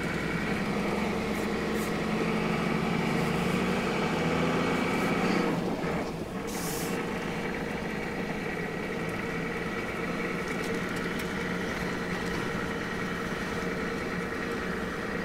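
Toyota Land Cruiser 60 Series engine running steadily under way on a sandy track, with tyre and road noise. The engine note rises slightly, then eases off about six seconds in, and a brief hiss comes just after.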